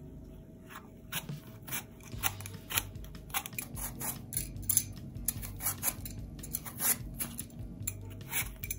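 Metal Y-shaped vegetable peeler shaving the skin off a green apple in short scraping strokes, about two a second.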